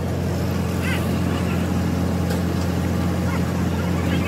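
An engine idling steadily: an even low drone that does not change.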